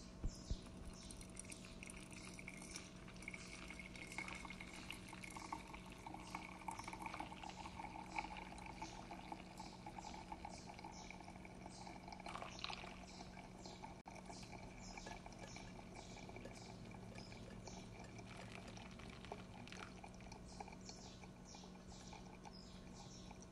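Hot water poured in a thin stream from a kettle onto ground coffee in a paper filter of a pour-over dripper, trickling faintly with fine crackling as the grounds bloom and drip.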